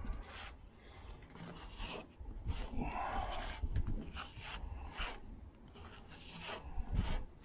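Body filler spreader scraping and packing fiberglass-reinforced filler (Bondo Glass) into small rust holes in a car's steel roof, in a series of short, irregular strokes.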